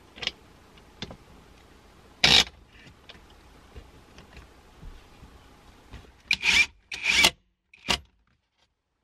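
Several short scraping and rubbing noises as heavy battery cables and a battery disconnect switch are handled and fitted against a wall panel: a few faint ones early, a loud one about two seconds in, and three more close together near the end.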